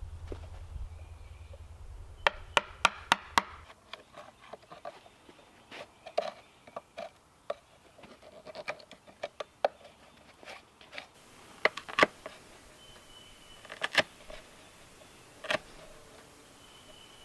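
Hand carving a small wooden dish, knife and gouge cutting and scraping in its hollow: irregular sharp wooden clicks and cuts, with a quick run of about six loud clicks a little over two seconds in.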